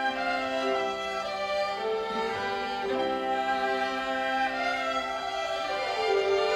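Violin ensemble playing a melody of held notes over sustained lower string parts.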